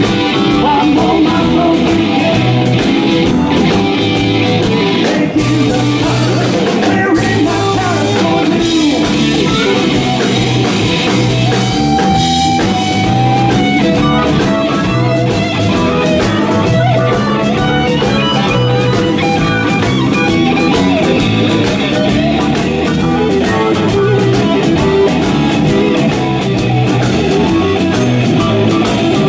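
Live rock-blues band playing: electric guitar and electric bass over a drum kit, with a sustained lead line from the frontman at the microphone.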